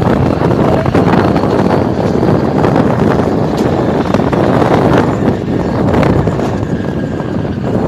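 Wind rushing over the microphone of a moving scooter, with the scooter's running noise underneath; the noise is steady and loud throughout.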